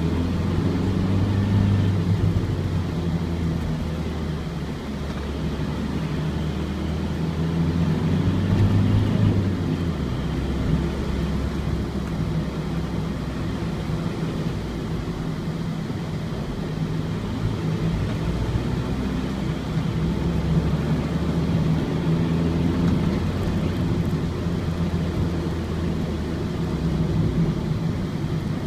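Ford Transit's four-cylinder diesel engine pulling on the road, heard from on board, its note rising and falling as the van speeds up and slows, over steady road rumble.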